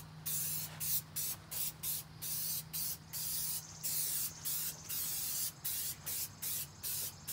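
Aerosol can of Behold furniture polish spraying in quick short hissing bursts, about two a second, with one longer spray of a second or so around the middle.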